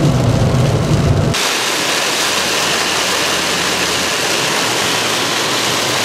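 Pouring rain on a car's roof and windshield, heard from inside the cabin as a steady, dense hiss. For about the first second, a low road-and-engine rumble from driving on a wet highway lies under it; it cuts off abruptly.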